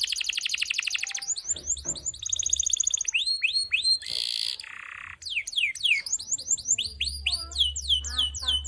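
Domestic canary singing vigorously: fast rolling trills and runs of quick falling whistled notes, with a short harsh, buzzy note about four seconds in.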